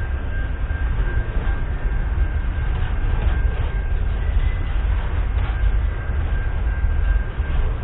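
Container wagons of a freight train rolling past: a steady, loud rumble of wheels on rail, with a thin, steady high-pitched tone running through it.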